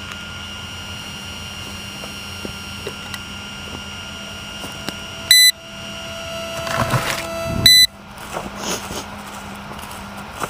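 Two short, loud electronic beeps from an FPV quadcopter's onboard electronics, about two and a half seconds apart, over a steady high-pitched electronic whine. After the first beep the whine gives way to a lower steady tone until the second beep, with some brief rustling between them.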